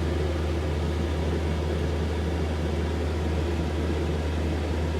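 Pet hair dryer (blower) running steadily, a constant rush of air over a low motor hum.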